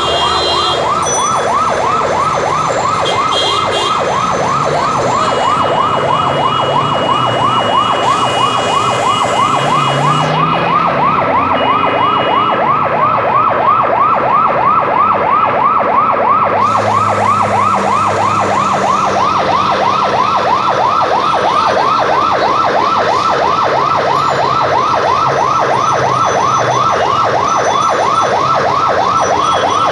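Fire engine siren sounding a loud, fast yelp, its pitch sweeping up and down several times a second without pause, over traffic noise.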